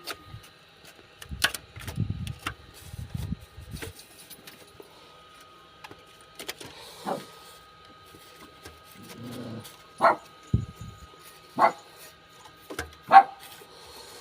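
A dog barks about four times in the second half, short single barks a second or two apart. Earlier come a click and low rustling and knocking, like parts being handled.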